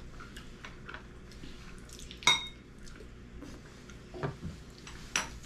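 Tableware clinking and tapping during a meal: chopsticks and a spoon against ceramic bowls, with one loud ringing clink about two seconds in and a few lighter taps later.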